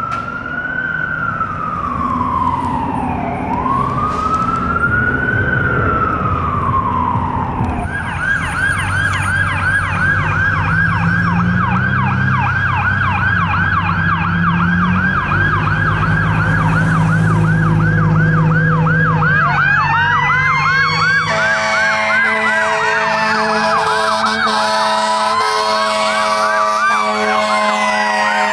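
Fire truck siren on a slow wail, switching about eight seconds in to a fast yelp over the diesel engine's rumble. About twenty-one seconds in, a steady blast of air horns comes in while a siren winds down in pitch.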